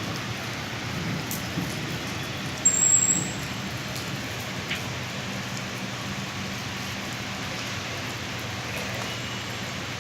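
Rain falling steadily, with a brief louder sound about three seconds in.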